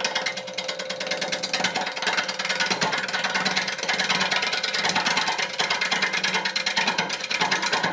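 Wood lathe spinning a bowl blank while a bowl gouge takes a light cut across its bottom. The tool catches only the high spots of the out-of-flat wood, so it makes a rapid, even ticking over the lathe's steady hum.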